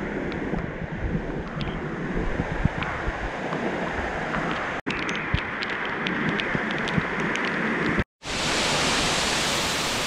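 Waterfall pouring and splashing close by, a steady rush of water with scattered drips and spatters. After a brief break near the end the rush becomes steadier and more even.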